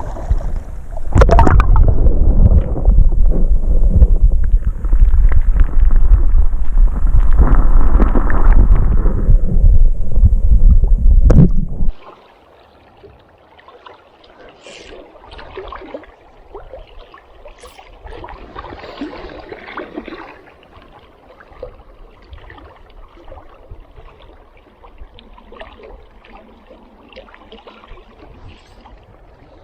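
Loud rushing, splashing river water close to the microphone for about the first twelve seconds, then it cuts off suddenly to faint gurgling water.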